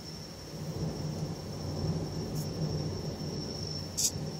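Distant thunder rumbling low, swelling about a second in and easing off near the end. A steady high thin tone runs underneath, and a short sharp click comes near the end.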